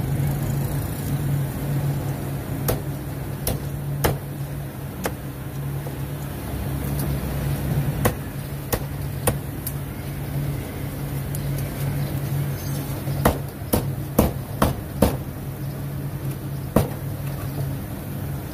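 A cleaver chopping roast duck, each cut knocking sharply against a steel pan: about a dozen irregular knocks, with a quick run of five a little past the middle. A steady low motor hum runs underneath.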